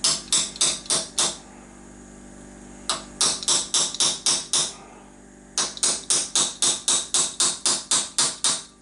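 Hammer tapping on a 12 mm socket used as a drift, driving a replacement condenser into its seat in a moped stator plate. Three runs of quick, sharp metallic taps at about four a second: about five, then about eight after a pause, then a longer run of about fifteen near the end.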